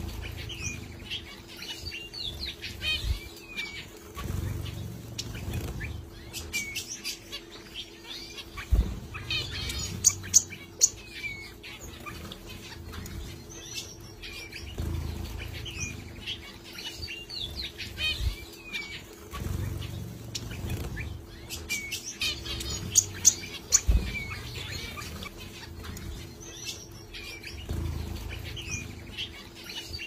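Budgerigars chirping and chattering in many short rising and falling calls, with scattered sharp clicks.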